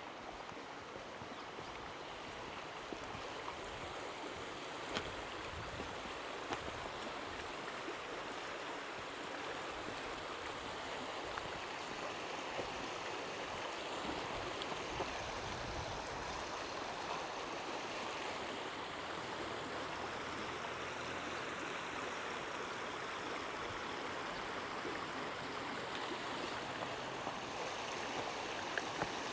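Water of a stream rushing steadily, growing slowly louder, with a few faint clicks.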